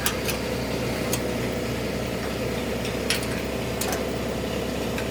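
Steady mechanical hum like an idling engine, with a handful of light clicks and taps as a metal quarter-turn fastener is pushed through its rubber retainer and seated in a tractor side panel.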